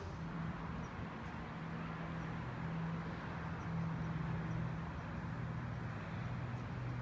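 Steady outdoor background hum: a low engine-like drone that shifts slightly in pitch, over an even wash of noise, with a thin, steady high-pitched whine.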